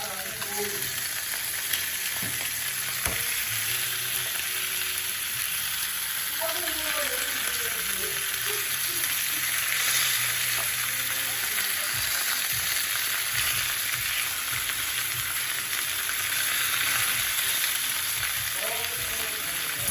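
Meat sizzling in a hot frying pan, with a steady hiss.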